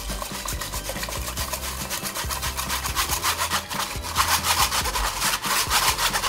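Wire whisk scraping round and round inside a steel mesh strainer, pushing besan-and-buttermilk batter through, in quick repeated strokes that grow louder in the second half.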